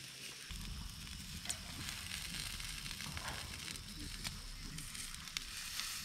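Pork sizzling on a grill grate over a wood campfire, with a few sharp clicks through it.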